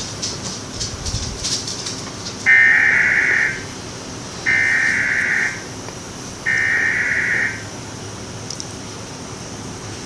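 Emergency Alert System SAME header: three bursts of digital data tones, each about a second long and a second apart, the coded header that opens a required weekly test.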